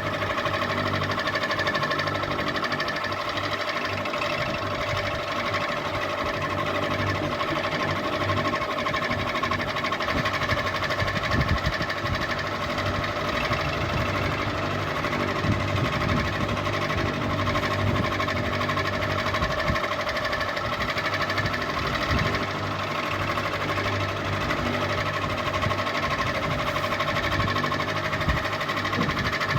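Ceiling fan running steadily: a constant low motor hum with a steady whine above it, and a few brief low knocks.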